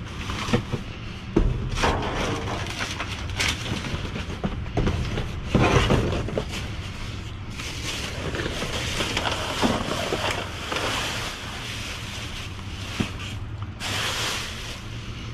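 Flattened cardboard boxes and plastic trash bags rustling and scraping as they are pushed around with a reacher-grabber tool inside a steel dumpster, with irregular knocks. A steady low hum runs underneath.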